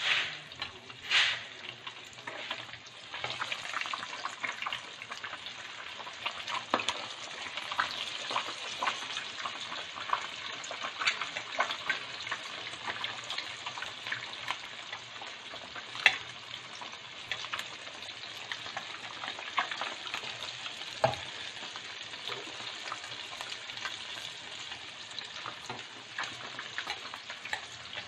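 Batter-coated chicken wings deep-frying in hot oil: a steady sizzle with frequent sharp pops and crackles.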